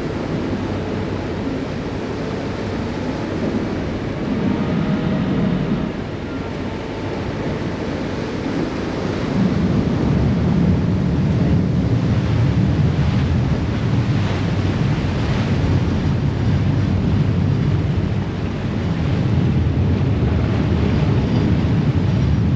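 Wind buffeting the microphone over the rush of water and the engine rumble of a moving Sydney harbour ferry, growing louder about nine seconds in.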